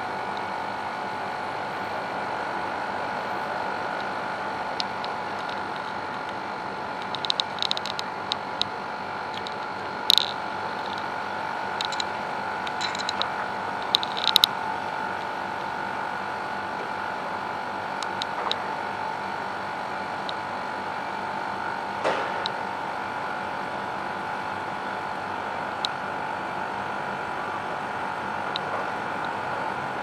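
Steady mechanical hum, with a few short, high clicks in the first half.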